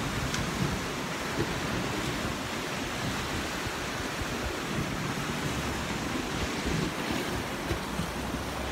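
Steady wash of sea surf, with wind buffeting the microphone at times in low rumbles.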